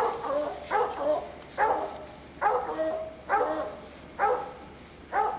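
Coon-hunting hound barking steadily at a tree, about seven barks a little under a second apart, each starting sharply and falling away: the steady tree bark a hound gives when it has a raccoon treed.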